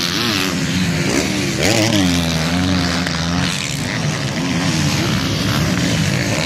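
Several motocross bike engines revving up and down as the riders work the track. Their pitch keeps rising and falling, with one engine climbing in pitch about two seconds in and holding briefly.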